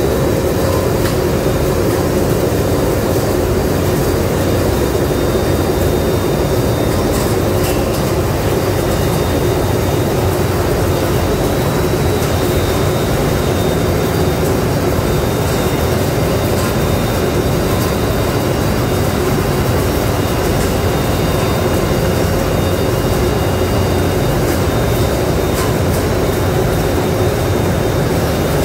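Olive mill's olive-washing and conveying machinery running: a loud, continuous mechanical din with a constant hum.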